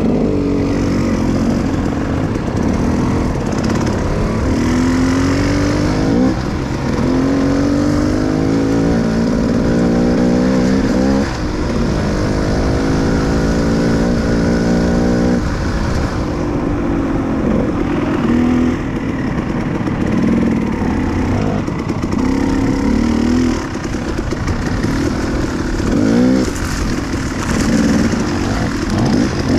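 Dirt bike engine revving under changing throttle, its pitch climbing several times and dropping back, with a longer steady high run in the middle, over a loud low rumble.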